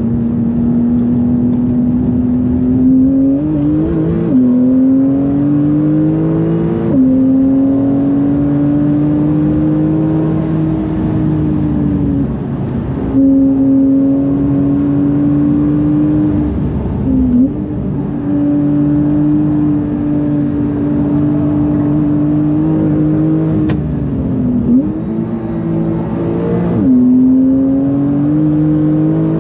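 Porsche 991.2 GTS twin-turbo flat-six, fitted with bigger turbos, under hard acceleration. Its note climbs steadily in each gear and drops sharply at quick upshifts, about 4 and 7 seconds in and again near the end. Brief lifts and blips come in between, around 12, 17 and 25 seconds.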